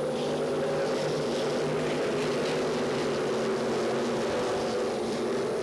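A pack of IMCA stock cars' V8 engines running hard together at racing speed, a steady blend of several engine notes.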